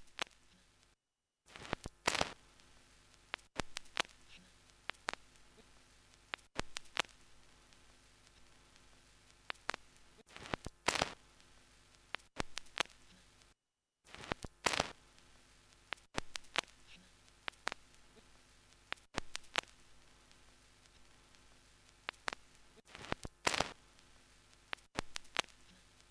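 Faint crackling static: a low hiss with irregular pops and clicks, cutting out to silence briefly about a second in and again near the middle.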